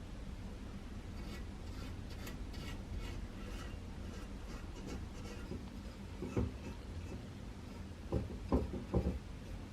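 Light scratching and ticking, then a few separate dull knocks, four of them near the end, as small objects are handled and set down, over a steady low hum.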